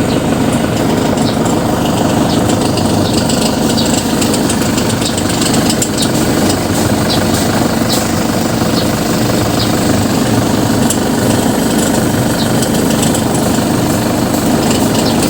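Toyota HiAce engine idling steadily, with faint irregular ticks over the drone. The noise comes from the accessory drive, which the mechanic traces to a worn bearing in the alternator, the AC compressor or the belt tensioner.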